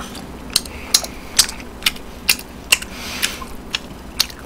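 Close-miked chewing of marinated pork ribs: wet mouth smacks and clicks about two a second, in a steady chewing rhythm over a low hum.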